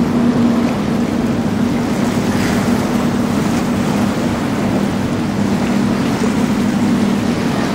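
Outboard engines of a center-console boat running steadily, a drone in two close pitches, over a loud rush of water.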